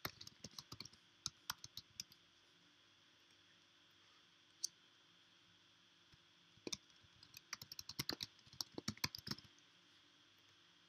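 Typing on a computer keyboard: a quick run of key clicks, a single click about four and a half seconds in, then a longer run of typing from about six and a half to nine and a half seconds.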